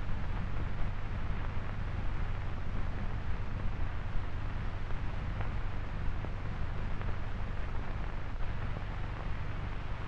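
A steady deep rumbling noise with hiss over it, with no distinct events or pitch.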